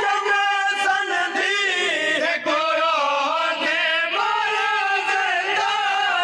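Group of men chanting a nohay, a Shia lament, several male voices singing together in one long continuous line.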